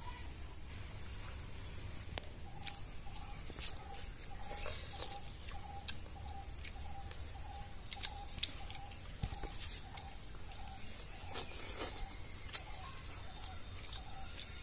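Rural outdoor ambience: insects buzzing steadily at a high pitch, and a bird repeating a short low note two or three times a second, with scattered light taps and clicks.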